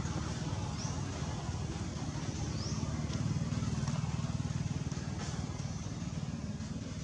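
A motor vehicle's engine running steadily: a low rumble with a fast, even pulse that holds through the whole stretch.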